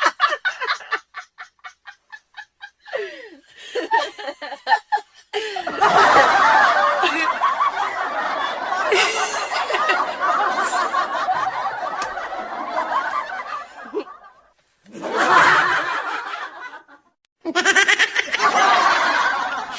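People laughing. It starts with short pulsing laughs, then turns into a long stretch of hearty laughter lasting about eight seconds, and ends with two more bursts after brief pauses.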